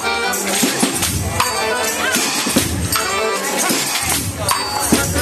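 Bottari folk percussion band playing: sticks beating a continuous rhythm on wine barrels and vats, with metal sickles jingling on top and voices over the beat.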